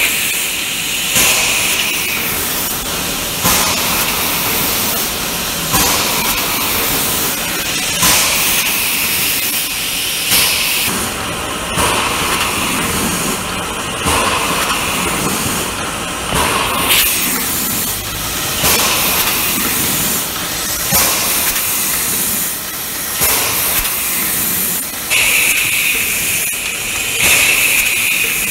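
Rotary pouch packing machine running with a steady mechanical hiss. A short, louder burst of air hiss comes about every two seconds as the machine steps through its cycle.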